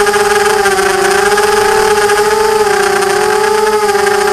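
Quadcopter's four EMAX MT2204 2300KV brushless motors spinning 5040 propellers, a steady whine with a rushing hiss heard from the onboard camera. The pitch sags slightly and recovers twice with the throttle, then rises sharply near the end.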